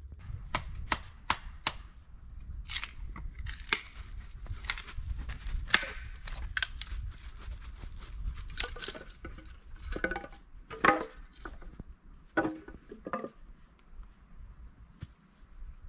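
Hatchet chopping wood: a string of sharp wooden knocks, roughly one a second, heavier and fuller in the second half. A low rumble runs under the first half.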